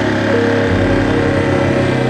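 Yamaha Serow 250's single-cylinder engine running on the move, its pitch shifting about half a second in.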